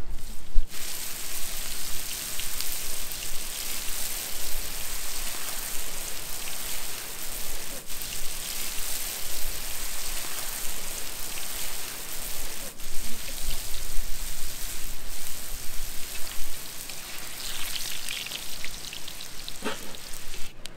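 Boorsok dough pieces frying in hot oil: a dense, steady sizzle that starts about a second in and briefly breaks off twice.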